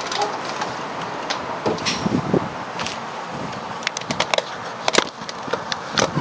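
Scattered clicks and knocks of the loosened front steering knuckle and hub assembly being handled, coming more thickly in the last couple of seconds.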